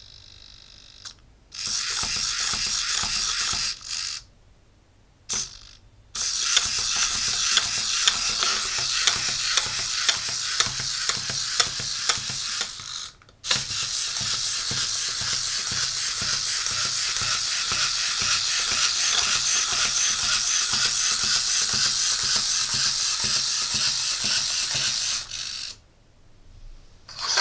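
Otto DIY walking robot's hobby servos whirring and rattling in rapid clicks as the little biped walks at its high speed setting. The sound comes in three runs, with a pause of about two seconds near the start, a brief break about halfway, and stops shortly before the end.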